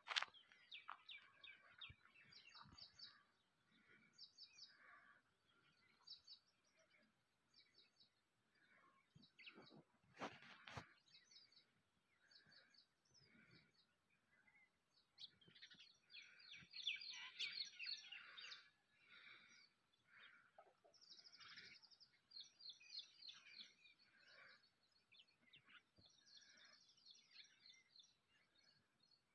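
Faint chorus of small birds chirping, short high chirps repeated over and over, growing busier for a couple of seconds about halfway through. A brief knock sounds near the start and another about ten seconds in.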